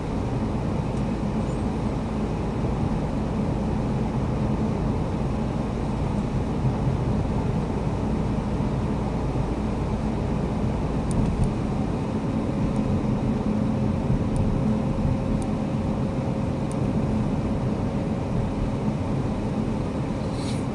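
Mazda CX-3 driving at a steady speed, heard from inside the cabin: an even low drone of tyre, road and engine noise. A faint steady hum joins in about halfway through and fades near the end.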